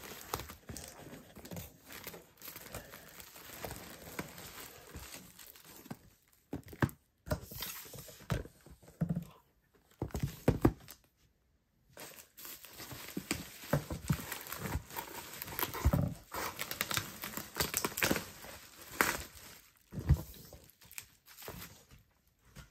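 Plastic wrap and bubble wrap crinkling and rustling as items are handled in and around a cardboard box, with scattered sharp knocks as hard album and CD cases are set down on a table.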